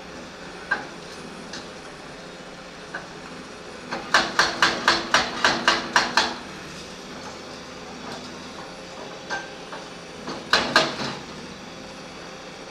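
Sharp metallic clanks: a quick run of about nine strikes at roughly four a second, then two more a few seconds later, with a few lighter clicks between, over a steady machine hum.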